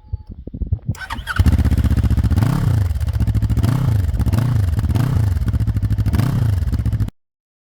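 Junak SR 400 (Zongshen Cyclone RE3) 400cc motorcycle on its stock exhaust, starting up about a second in and then idling, with about six short throttle blips. The sound cuts off suddenly near the end.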